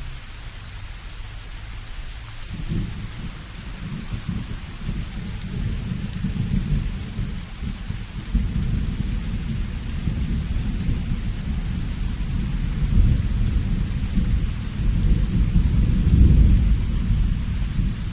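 Steady rain with a deep roll of thunder that starts about three seconds in, builds in waves and is loudest near the end.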